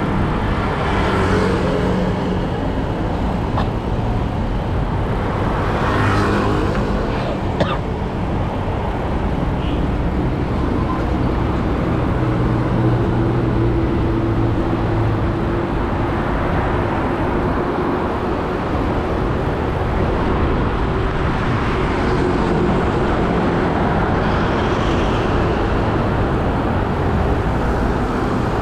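Road traffic: motor vehicle engines running and passing close by over a steady rush of road noise, with one sharp click about seven and a half seconds in.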